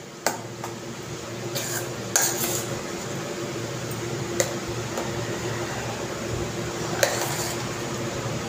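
A metal spoon stirring thick strained yogurt in a stainless steel bowl, with a handful of sharp clinks as the spoon knocks the bowl's side. A steady hum runs underneath.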